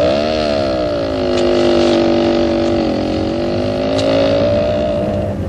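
Motorcycle engine running as the bike rides off. Its pitch dips and climbs back just after the start, then holds steady, with a second brief dip about three seconds in.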